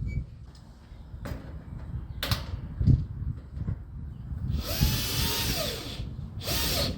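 Power drill run in two short bursts near the end, its motor pitch rising and then falling each time. A few sharp knocks come before.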